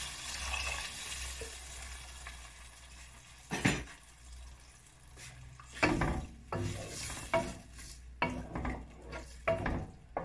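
Hot sautéed ingredients in a nonstick pot sizzle as water is poured in, the hiss fading over the first couple of seconds. Then a wooden spoon stirs the pot, knocking and scraping against it about seven or eight times.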